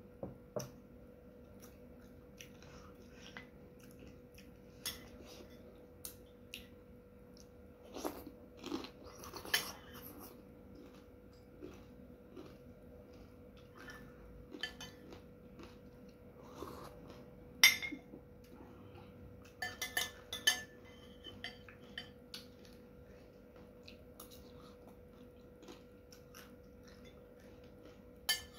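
Eating sounds: a metal spoon clinking and scraping against a ceramic bowl of soto, with soft chewing in between. The clicks come irregularly over a faint steady hum, with one loud clink about two thirds of the way through and a quick run of clinks just after it.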